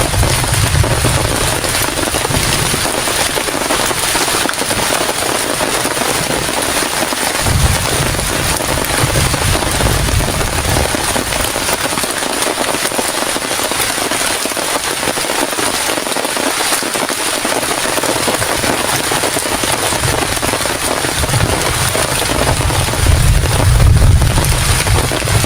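Heavy rain pelting down in a dense, crackling hiss, with deep rumbles that swell and fade about a second in, around eight to ten seconds in, and again near the end.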